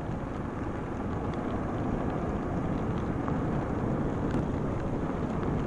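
Motorcycle riding along a rain-soaked road in heavy rain: a steady rush of engine, tyre spray and rain.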